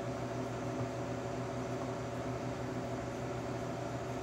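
Steady mechanical hum of room equipment: a constant low drone with a few steady higher tones over a faint hiss, unchanging throughout.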